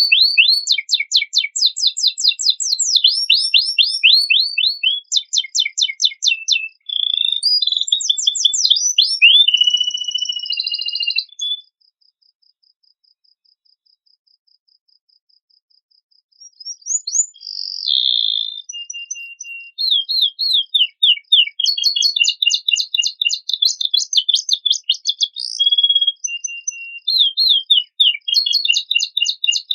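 Domestic canary singing a fast, varied song of rapid high trills and repeated chirping phrases, filled with learned phrases. The song breaks off for about five seconds near the middle, then resumes.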